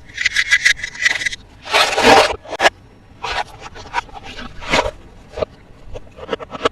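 Toy packaging being handled and scraped by hand: a run of short scraping, rubbing strokes, with a longer, louder scrape about two seconds in.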